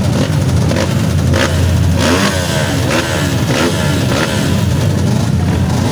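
Several dirt bike engines idling and revving together at the start line, their pitches rising and falling over one another, with repeated short throttle blips.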